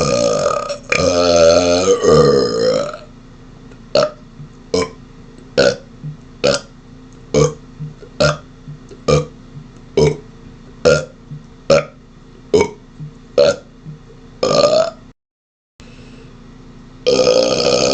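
A man burping: one long, drawn-out burp with a wavering pitch, then a rapid-fire string of short burps at about two a second, ending in a slightly longer burp. After a brief dead-silent break, another long burp starts near the end.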